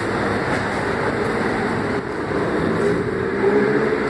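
Steady rumbling background noise, with a faint voice coming in near the end.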